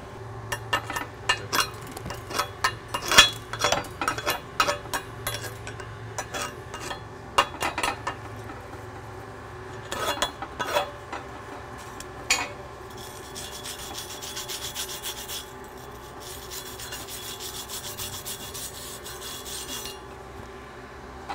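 Flux-core weld bead on a steel plate being cleaned of slag between passes, metal scraping on metal. Irregular scraping strokes and knocks for the first dozen seconds, the loudest about three seconds in, then two spells of fast, steady brushing.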